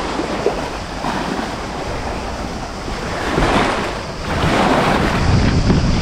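Sea waves washing, with wind buffeting the microphone as a low rumble; the noise swells louder about three and a half seconds in and again from about four and a half seconds on.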